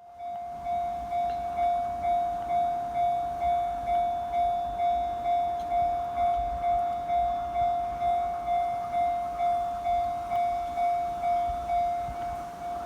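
Japanese railway level-crossing alarm bell ringing: a steady clang at one pitch, repeating about twice a second.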